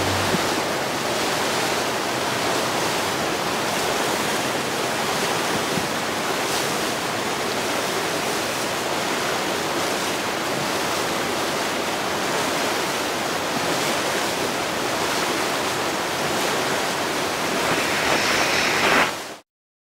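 Steady, even rushing noise with no engine hum or voices in it. It swells briefly near the end and then cuts off suddenly.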